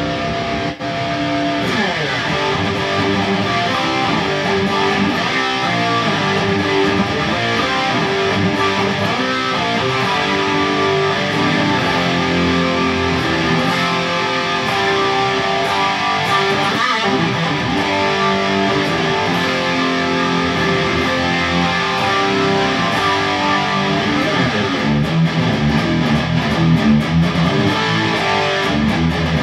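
Overdriven electric guitar, a Kramer, playing heavy rock riffs and ringing chords through a Boss SD-1 into Peavey amps, thickened by a Boss SE-50 rack effect's chorus-like doubling. A short click about a second in.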